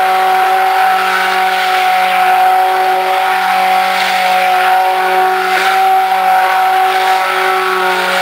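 Handheld stick blender running steadily in a plastic bucket of soap batter, a loud even motor whine as it mixes the oils and milks.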